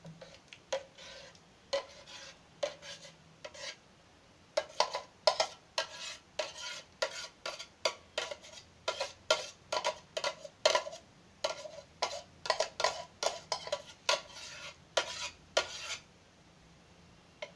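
A spoon scraping and knocking against an electric kettle and a serving bowl while scooping out thick kheer. Scattered knocks at first, then a steady run of clinks and scrapes, a few a second, that stops shortly before the end.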